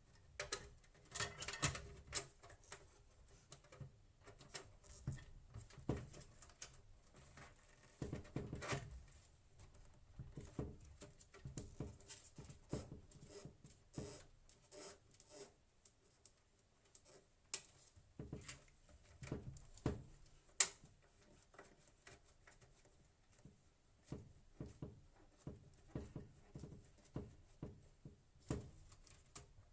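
Irregular small clicks, taps and light knocks of hands handling desktop PC hardware, with one sharper click about 20 seconds in.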